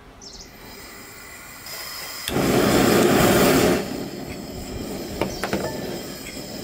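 Gas valve opened with a hiss of gas, then the gas stove burner lights with a sudden loud whoosh about two seconds in. It flares loudly for about a second and a half, then settles to a steady, quieter burning rush, with a couple of light clicks near the end.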